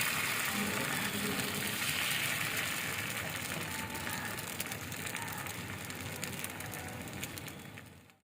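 Thin neer dosa rice batter sizzling on a hot tawa: a steady hiss with fine crackling that slowly dies down, then cuts off abruptly near the end.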